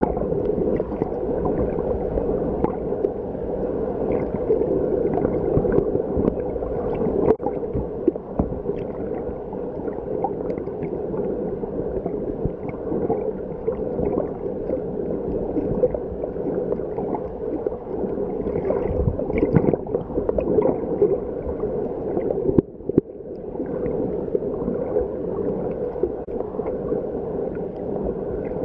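Underwater water noise: a steady muffled rushing and gurgling, with scattered faint clicks and a brief drop-out about three quarters of the way through.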